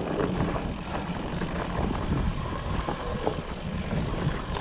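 Specialized Turbo Levo electric mountain bike rolling fast down a dirt forest trail: a steady rumble of tyres on dirt and the bike rattling over the ground, with wind buffeting the camera microphone.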